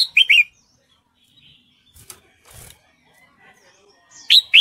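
Red-whiskered bulbul calling in quick phrases of three or four short, sharp whistled notes: one phrase at the start and another beginning near the end, with a soft knock in between. The uploader presents these as a female in breeding condition calling to a male.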